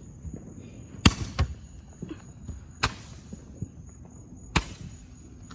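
Fireworks going off in sharp cracks: four bangs at uneven gaps, two close together about a second in, then one near the middle and one near the end.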